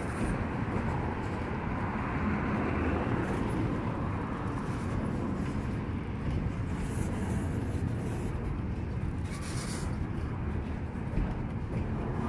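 Double-stack intermodal train of articulated well cars rolling past close by: a steady rumble of steel wheels on the rails. It has short, higher hissing a couple of times, about seven and nine and a half seconds in.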